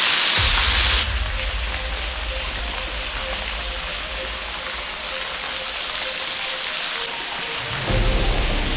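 Rushing water of a waterfall, a steady hiss that changes abruptly in level about a second in and again about seven seconds in, with a deep low rumble coming in near the end.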